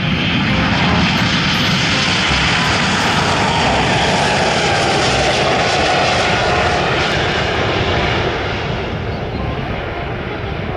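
Airbus A220 airliner's twin geared turbofan engines at takeoff thrust during the takeoff roll and climb-out: loud, steady jet engine noise that eases a little near the end as the aircraft climbs away.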